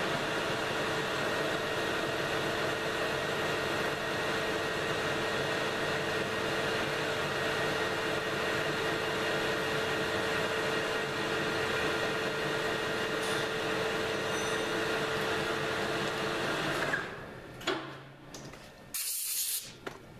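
Small metal lathe running with a steady whine, turning a long thin clamp screw, then switched off about 17 seconds in. A few clicks and a short hiss follow near the end.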